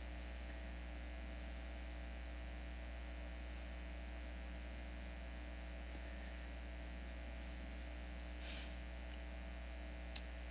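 Steady low electrical mains hum with thin overtones, carried by the sound system, with a brief rustle about eight and a half seconds in and a small click near the end.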